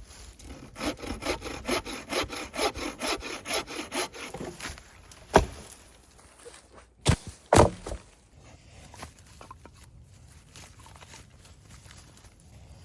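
Hand saw cutting dry standing dead wood in quick, even back-and-forth strokes, followed by three sharp cracks after the sawing stops.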